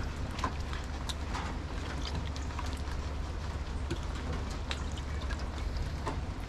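Hands washing yam and sweet potato in a pot of water: scattered small splashes and sloshing, over a steady low rumble.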